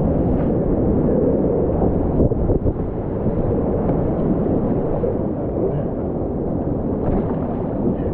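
Rushing whitewater of a river rapid, a steady loud rumble of churning water heard from a kayak in the current.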